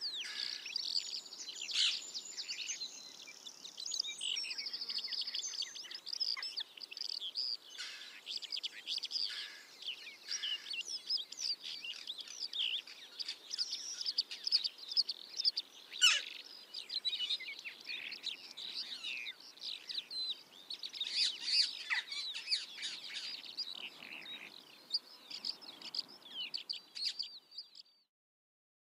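Dense chorus of small birds chirping and twittering, many short high calls overlapping without pause. A single sharp click stands out about halfway through, and the chorus fades out near the end.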